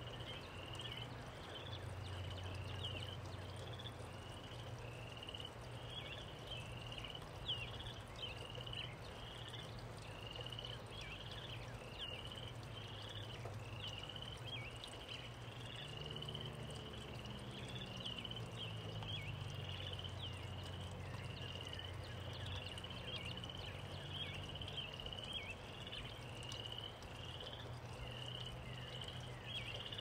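Gentle rain falling steadily, with short high chirping calls repeating a couple of times a second and a low hum underneath that drops in pitch about halfway through.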